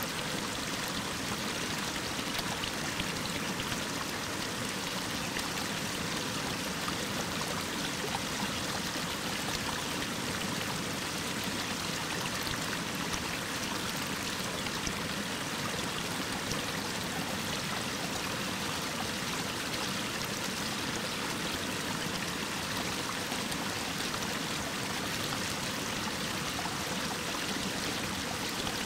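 Mountain stream falling as a waterfall over a rock face: a steady rushing of falling water that does not change.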